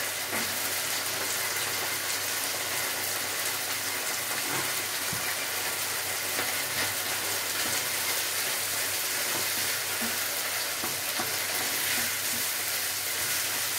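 Minced beef and freshly added chopped peppers sizzling steadily in a frying pan, with a wooden spoon scraping and tapping now and then as the mixture is stirred.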